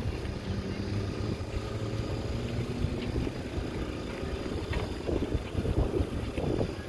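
Small portable generator running at a steady hum, with wind buffeting the microphone.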